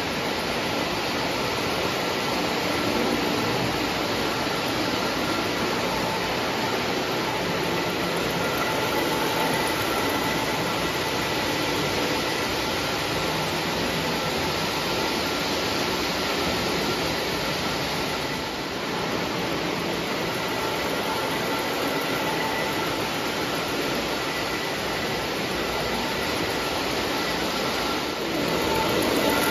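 Lionel O-gauge model trains running on three-rail track: a steady rolling rumble of wheels on the rails with a faint steady whine.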